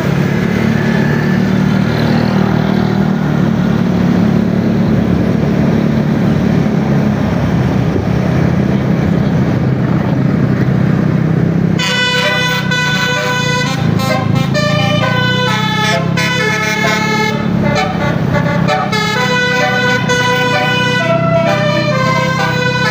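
A heavy vehicle engine running with a steady low hum. About halfway through, a multi-tone telolet bus horn starts up and plays a quick tune of stepped notes over it.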